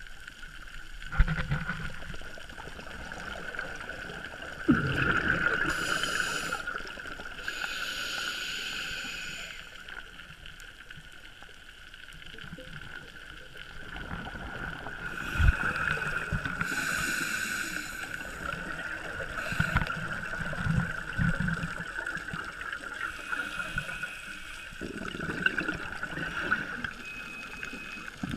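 Underwater sound of scuba divers breathing through their regulators: exhaled bubbles gurgle and hiss out in bursts every few seconds. A few dull knocks and a steady whine sit underneath.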